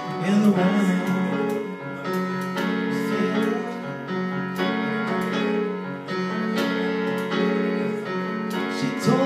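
Electronic keyboard on a piano sound playing an instrumental passage of steady chords and a melody. A man's singing is heard briefly at the start and comes back near the end.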